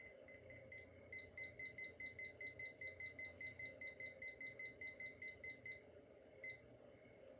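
Small handheld digital timer beeping as its buttons are pressed to set a 30-minute countdown: a rapid run of short high beeps, about five a second for nearly five seconds, then two single beeps near the end.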